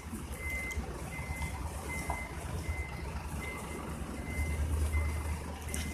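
A heavy vehicle's reversing alarm beeping steadily, one short high beep about every three-quarters of a second, over the low rumble of its engine.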